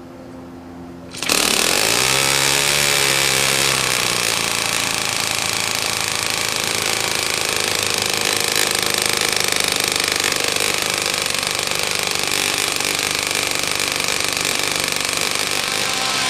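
Small custom-built model internal-combustion engine catching suddenly about a second in, its speed rising and dipping over the next few seconds, then running loud, fast and steady.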